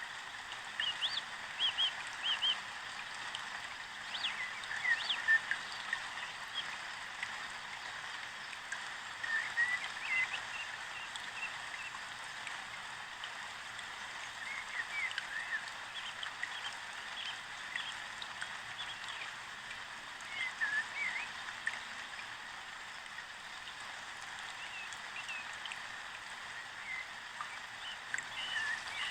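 Nature ambience: many short, quick bird chirps scattered over a steady rushing hiss.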